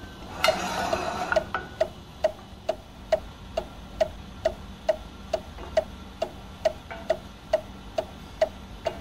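Gas range spark igniter clicking steadily, a little over two clicks a second, after a short noisy rush about half a second in.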